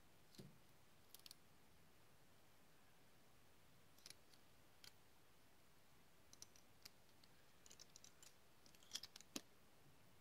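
Faint scattered clicks of tiny lock pins and springs handled between fingertips and tapped against each other. They come irregularly, thicken in the second half, and the loudest two come near the end.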